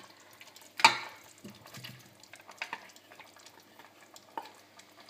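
Chunks of cooked beetroot pushed with a wooden spoon from a glass bowl, dropping into a pot of vegetables in broth. A sharp knock comes about a second in, then soft plops and scrapes.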